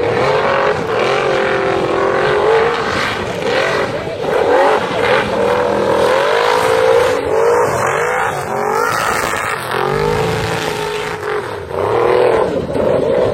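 Race car engine revving hard, its pitch repeatedly climbing and dropping back through gear changes.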